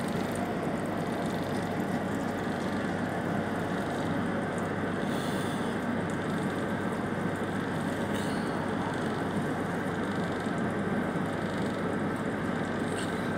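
Steady rumble and hiss of a passenger train, heard from its open coach door, with no wheel-clack rhythm.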